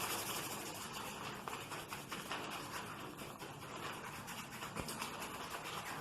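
Hands rubbing and brushing over skin and clothing during a back massage, a steady scratchy friction noise made of many small quick strokes, with one soft knock about five seconds in.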